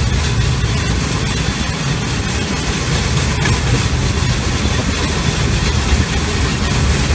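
Steel wheels of a pedal rail bike rolling along the rails: a steady low rumble, with a single click about three and a half seconds in.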